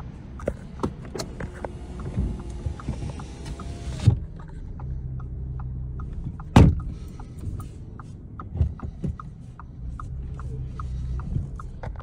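Car cabin with the engine running: a steady low hum, a regular ticking about twice a second, and scattered knocks, with one loud bang about six and a half seconds in.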